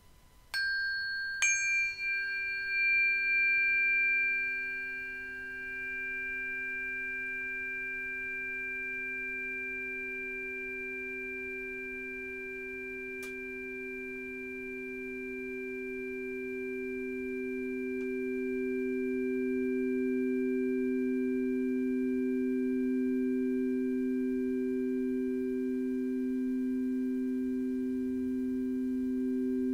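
Singing bowls. Two bright metallic strikes half a second apart near the start leave high notes ringing on, while two low, pure, steady tones come in and slowly swell, as a bowl rubbed around its rim builds up its hum.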